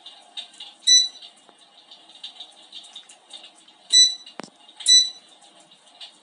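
Electric fireplace's simulated fire-crackle sound effect, an irregular patter of small pops. Three short electronic beeps from the unit's controls as its settings are changed: one about a second in and two close together near the end.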